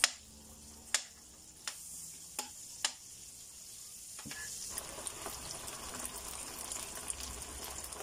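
Sliced onions and garlic frying in hot oil in an aluminium wok, with a steady sizzle. A metal spatula clicks against the wok five times in the first three seconds, and the sizzle grows louder about halfway through.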